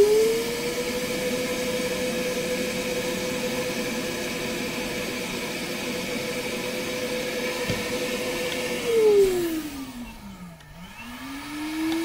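Milwaukee M12 Fuel brushless wet/dry vac running with its hose inlet sealed around a pressure probe, a steady whine. About nine seconds in the motor winds down, then spins part way back up near the end: the battery is dying.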